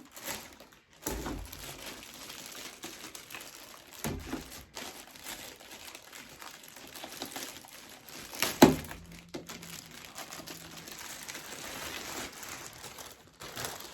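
Packaging crinkling and rustling as the parts of the robotic vacuum are handled, with a few knocks, the loudest about two-thirds of the way through.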